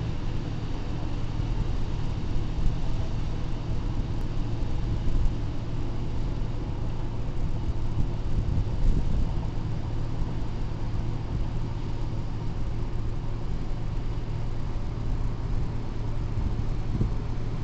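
Steady low engine rumble with a constant machine hum.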